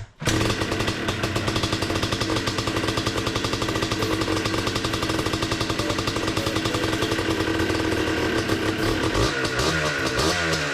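Yamaha Blaster ATV's two-stroke single-cylinder engine running steadily. Music comes in near the end.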